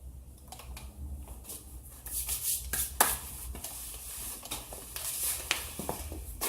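Light clicks, knocks and rustling from handling and painting plastic office-chair parts, with one sharp click about three seconds in.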